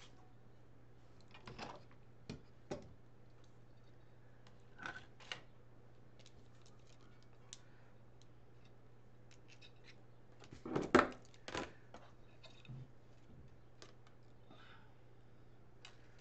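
Scissors snipping and craft wire being handled: scattered short clicks and snips, with a louder clatter about eleven seconds in, over a low steady hum.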